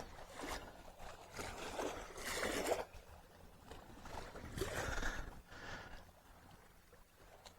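Faint river water lapping at the bank in soft, uneven swells every second or two.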